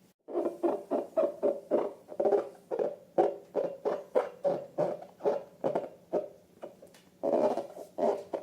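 Slime being squeezed and poked by hand, a quick run of short wet squelches about three a second, with one longer squelch near the end.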